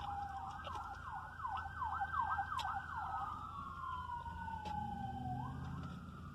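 Emergency vehicle siren sounding: a slow wail, switching about a second in to a fast yelp of roughly four sweeps a second, then back to a long slow wail that falls and rises again.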